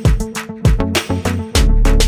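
Background music with a steady beat: regular drum hits over sustained bass notes.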